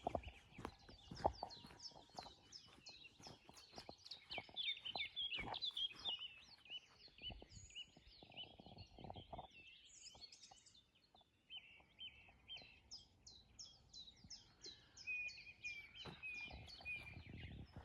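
Songbirds singing together in a busy chorus of quick, high chirps and trills that overlap without a break.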